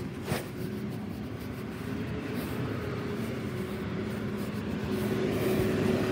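Engine of a Mack yard waste collection truck approaching, a steady hum that grows louder.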